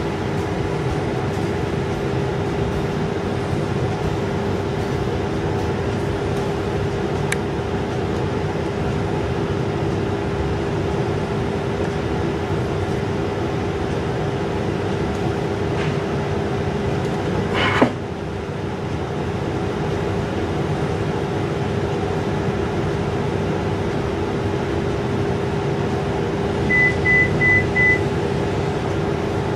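Steady machine hum with one constant tone. A single sharp click about eighteen seconds in, and four short high electronic beeps near the end.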